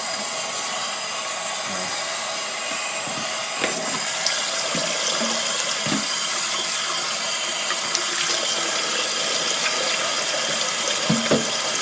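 Sink tap running steadily into a plastic ice cream bucket as it is rinsed out, a constant rush of water with a few light knocks from the bucket being handled.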